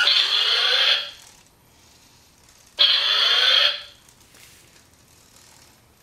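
Two-wheeled self-balancing toy robot's drive motors and gears whirring and rattling, in two bursts of about a second each, the second about three seconds in, with the pitch rising as it speeds up.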